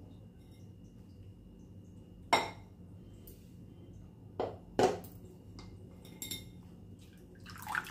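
Steel spoon pressing and scraping wet ground coconut in a wire-mesh strainer over a glass bowl, knocking against the strainer and bowl in a few sharp clinks, the loudest about two and a half and five seconds in, with a faint steady low hum underneath.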